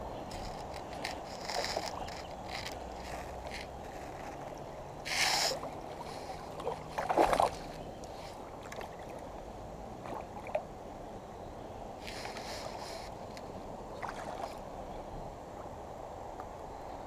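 A hooked smallmouth bass splashing and thrashing at the water's surface, over a steady wash of moving water. Two louder splashes come about five and seven seconds in.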